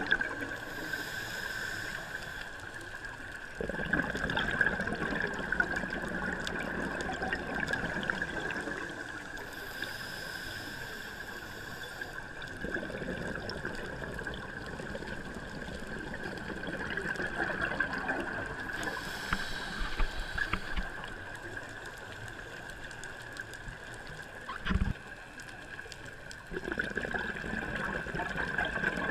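Scuba diver breathing through a regulator underwater, heard through the camera housing: a short hiss of inhaling, then a longer gurgle of exhaled bubbles, three breaths in a slow even rhythm. A single low knock sounds near the end.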